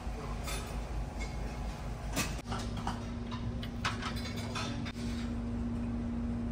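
Car-ferry dining-room ambience: a steady low drone of the ship with scattered light clicks and clinks, and a steady hum that comes in about two and a half seconds in.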